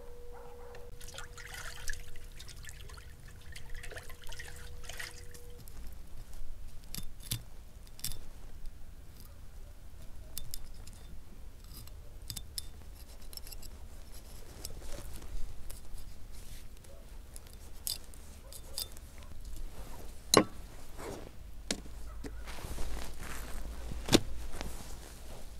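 A knife working through a raw river eel on a table: wet scraping and squelching of the flesh, with scattered sharp clicks and knocks of the blade against the tabletop, the strongest about twenty and twenty-four seconds in. A steady tone runs through the first five seconds or so.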